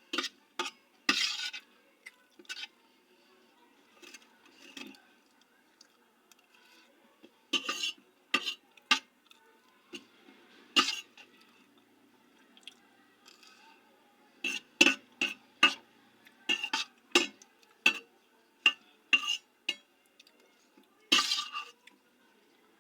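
Eating utensil clinking and scraping against a dish in scattered sharp clicks, some in quick runs of three or four, with short pauses between.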